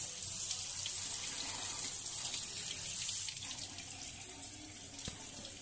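Tap water running over pointed gourd (potol) leaves as they are rinsed in a perforated steel colander; the flow eases a little after about three seconds.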